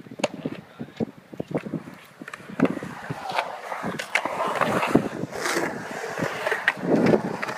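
Skateboard wheels rolling on a concrete bowl. There are scattered clacks and knocks at first, then from about two and a half seconds in a louder, continuous rough rolling noise with more clacks.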